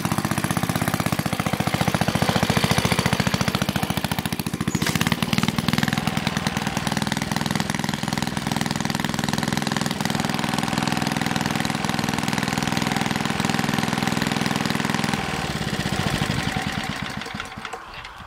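Engine of a 1952 Model 15 walk-behind garden tractor running with a fast, even beat as it drives the tractor along under its own power. The sound drops about fifteen seconds in and dies away near the end.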